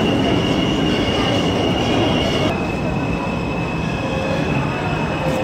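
Subway train noise in the station: a steady, loud din with a thin high whine over it that drops slightly in pitch about halfway through.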